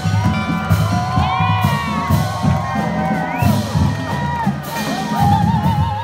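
Loud music with a steady beat playing over a crowd cheering and whooping.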